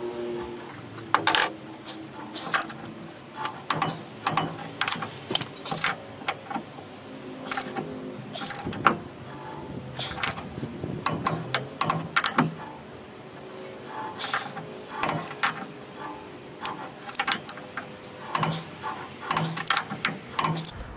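Ratchet of a torque wrench clicking in irregular runs as the hitch ball-mount bolts are tightened toward 150 ft-lb, with light metal clinks between strokes.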